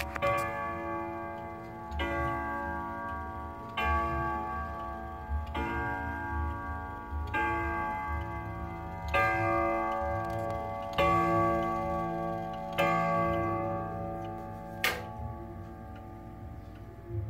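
Antique Frisian wall clock striking: slow, evenly spaced ringing strikes about every two seconds, each left to ring out, over the clock's ticking. A sharp click comes near the end, after which only the ticking goes on.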